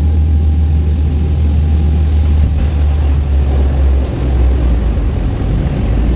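Steady, loud drone of a small turboprop airliner's engines and airflow, heard from inside the passenger cabin, with a deep low rumble.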